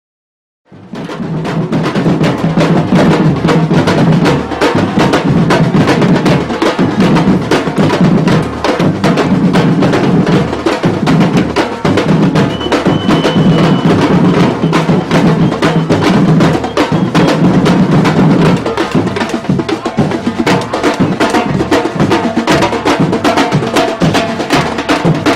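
Afro-Brazilian percussion ensemble playing a loud, fast, dense drum rhythm with low drums and sharp wooden clicks. It starts suddenly less than a second in.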